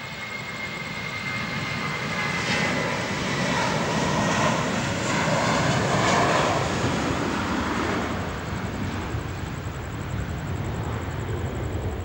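Aircraft engine noise swelling and fading as an aircraft passes, loudest about halfway through, with a thin high turbine-like whine that dips slightly in pitch near the start.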